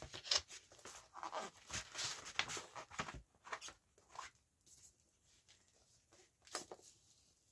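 Paper and plastic sleeve rustling and scraping as a vinyl record is worked out of its sleeve. There is a busy run of short scrapes for about three seconds, then a few scattered ones, with one louder rustle near the end.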